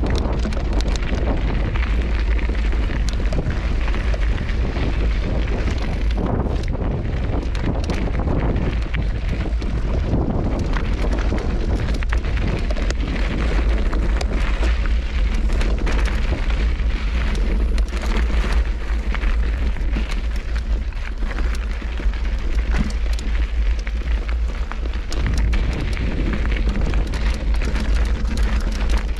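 Wind buffeting an action camera's microphone with a constant low rumble, over a mountain bike rolling down a loose, rocky trail: knobby tyres crunching over gravel and the bike rattling, with many small clicks and knocks from stones.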